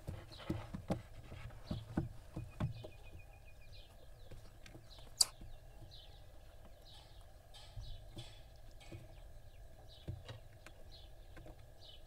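Barn owl chicks giving short, repeated hissing snore calls, a few each second. During the first few seconds these are mixed with soft knocks and scuffles as the owlets shift about on the wooden nest-box floor, and there is a single sharp click about five seconds in.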